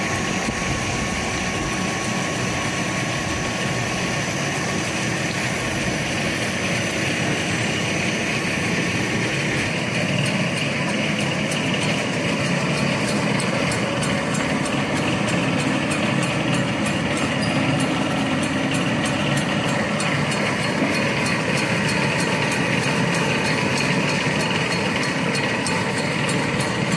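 Snack-food extrusion line machinery running with a steady mechanical whir and hum. From about ten seconds in, a fast, light ticking sits on top of it.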